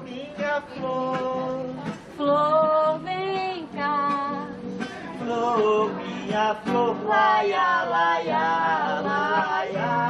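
A woman and a man singing a slow song together, with long held notes, to a strummed acoustic guitar.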